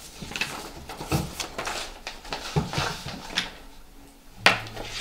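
Irregular rustling and handling noises of papers being moved about on a desk, then a single sharp tap about four and a half seconds in, the loudest sound.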